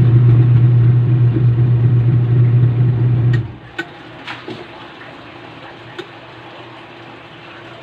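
Washing machine motor running with a loud, steady hum during a test run, cutting off abruptly about three and a half seconds in, followed by a few faint clicks.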